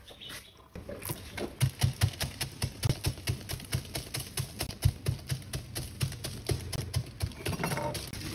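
A pestle pounding lemon pieces and ice in a tall cup to make hand-pounded lemon tea: a quick, even run of knocking thuds, about three strokes a second, starting about a second in.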